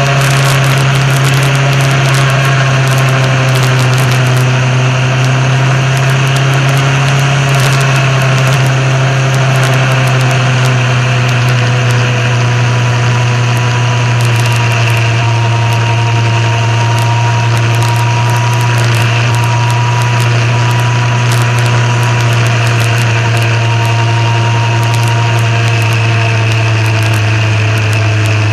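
Motorcycle engine running steadily under way, its pitch slowly falling as the revs ease off, heard from a camera mounted on the bike. Wind rushes over the microphone throughout.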